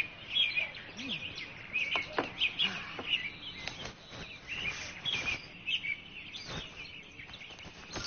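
Birds chirping and twittering steadily as background ambience, with a few faint taps in between.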